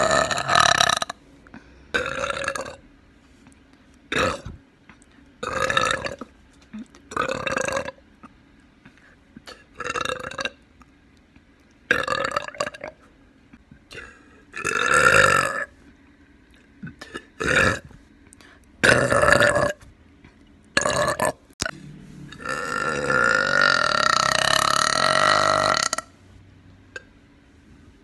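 A young woman burping repeatedly: about a dozen short belches, one every second or two, then one long drawn-out belch of about three and a half seconds near the end.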